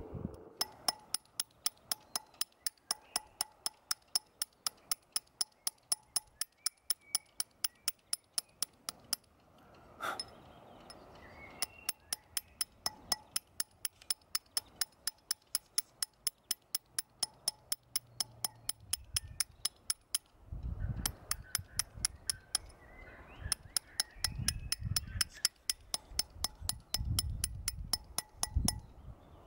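Hand hammer striking a chisel cutting into a stone runestone: a steady run of sharp, ringing metallic taps, about three to four a second, with two short pauses.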